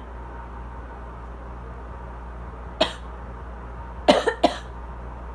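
Asthma coughing: a single cough about three seconds in, then a quick run of three coughs near the end, over the steady hum of an air conditioner.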